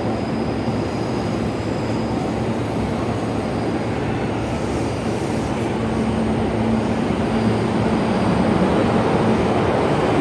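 Electric commuter train pulling out of the station platform: a continuous rumble of wheels on rail, with a steady motor hum coming in about halfway through and the sound growing a little louder toward the end.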